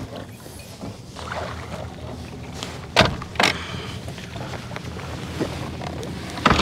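Sharp knocks against a small fishing boat's hull over a low, steady background of wind and water: two close together about three seconds in and another near the end.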